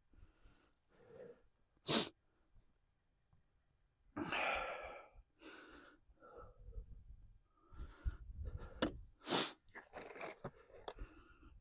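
Scattered knocks and clicks of tools and lumber being handled during floor framing, with one breathy exhale about four seconds in.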